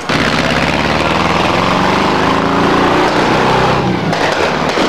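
A small engine running loud and close, starting abruptly, its pitch swelling and easing back, then dropping off about four seconds in.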